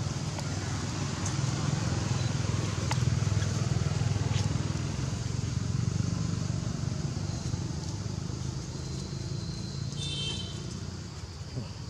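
A steady low engine rumble of a motor vehicle running nearby. About ten seconds in, a brief high squeal from a baby macaque as its mother drags it along the ground.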